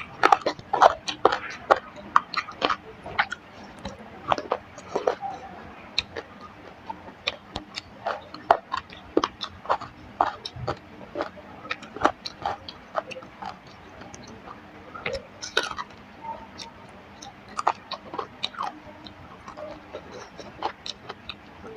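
A person eating rice and curry close to the microphone: wet chewing with many irregular lip-smacking clicks, a little sparser about two-thirds of the way through.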